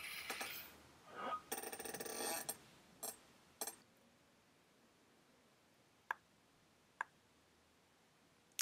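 Faint computer mouse and keyboard clicks: a short rustle at the start, a quick run of rattling clicks about one and a half to two and a half seconds in, then single clicks spaced a second or more apart.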